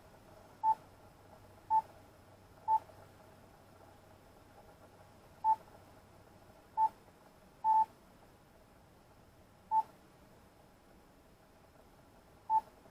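Short single-pitch key beeps from a ham radio transceiver's front panel as its buttons are pressed, about eight at irregular intervals with one quick double beep.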